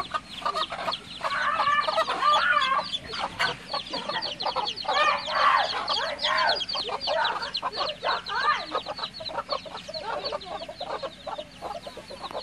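Hens clucking, with a dense run of quick, high chick peeps through it.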